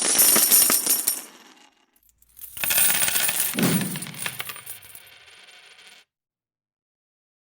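Intro sound effects: two bursts of bright metallic jingling and rattling, the second with a falling low swoosh partway through. Each fades away, and silence follows for about the last second and a half.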